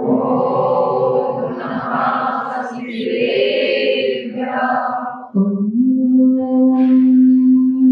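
Jain nun's voice chanting a devotional hymn through a microphone, over a steady held drone note. The melody line pauses briefly a little past halfway while the drone carries on.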